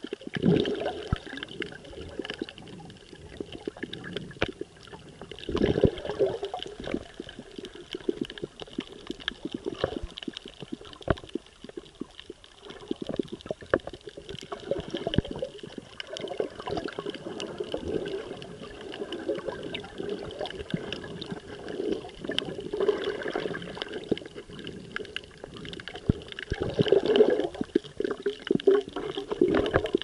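Water sloshing and bubbling around an action camera held underwater, with many small clicks. It swells louder a few times, just after the start, about six seconds in and near the end.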